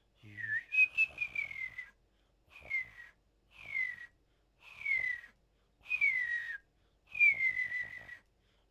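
Beatboxer's outward hummingbird whistle (uvula whistle), a mouth whistle combined with the uvula. Six high whistled phrases, the first and last longer, each gliding down in pitch with a rattly flutter running through it.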